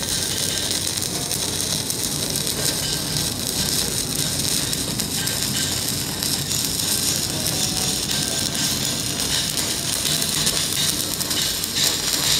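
Stick-welding arc burning along a horizontal butt joint in steel plate: a steady, continuous crackle and sizzle.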